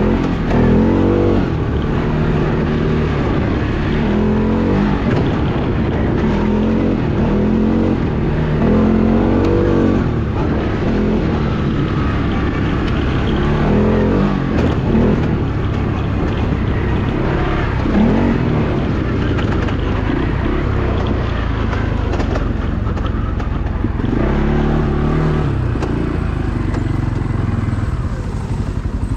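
Off-road vehicle engine under way on a dirt trail, revving up and falling back again and again as the throttle is worked.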